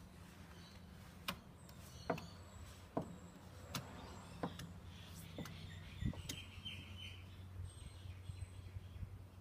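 A hand tool scrapes and clicks against a timber window's glazing rebate as old or new putty is worked along the pane. There are about eight sharp, uneven strikes in the first two-thirds. Birds chirp faintly.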